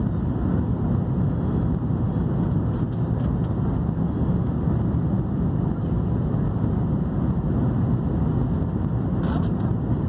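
Jet airliner cabin noise in flight: a steady, even low roar of engines and rushing air, heard from inside the cabin.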